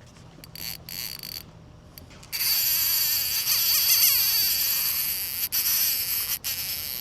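Fishing reel drag screaming as a hooked bull redfish runs and strips line, a loud high-pitched ratcheting buzz that starts suddenly about two seconds in.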